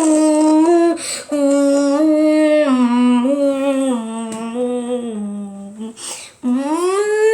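A person's voice imitating a tornado siren: a held, humming wail that steps slowly down in pitch, breaks off briefly about six seconds in, then starts a rising glide like a siren winding up.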